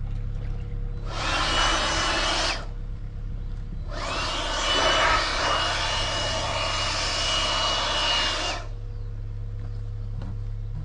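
A small electric power tool running in two bursts, a short one and then a longer one of several seconds, its whine rising as it spins up each time, over a steady low hum.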